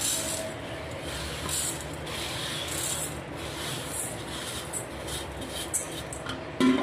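Raw rice grains being rubbed and swished by hand in a steel bowl during washing, a steady gritty rubbing with repeated short hissy strokes. A short louder sound near the end.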